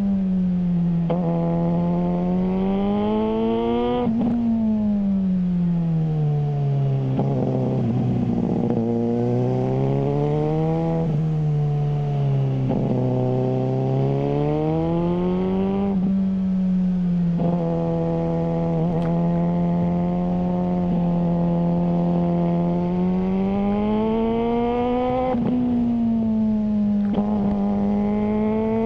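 Suzuki GSR600's inline-four engine through a GPR Ghost aftermarket exhaust, under way. The engine note climbs and falls again and again with throttle and gear changes, and holds steady for several seconds past the middle.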